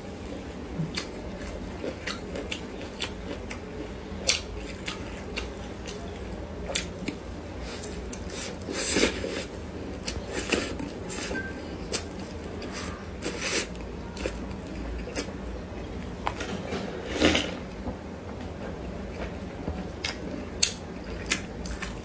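Close-miked chewing of a pan-fried bun: wet mouth clicks and smacks at an irregular pace, with a few louder ones.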